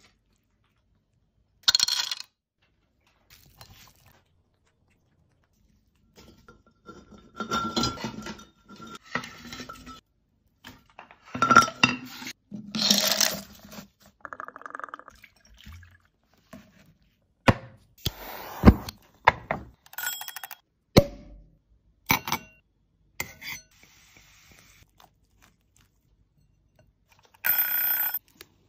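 A string of short, separate handling sounds with silent gaps between them: clinks, knocks and taps of shellfish, pottery and dishes. Near the end comes a dense burst of about a second with a high ringing tone, from a steel mechanical egg timer.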